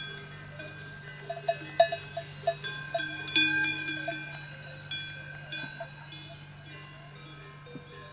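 Small metal bells clanking irregularly, many short ringing strikes at different pitches, thickest and loudest in the first half, over a steady low hum.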